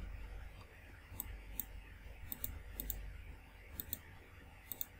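Computer mouse clicking: a handful of faint, sharp clicks, several in quick pairs, over a low steady hum.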